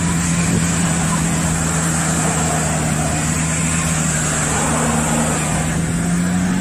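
Audi Q7's engine running at high, steady revs under heavy load while its wheels spin on dry grass, with the hiss of tyres and thrown dirt.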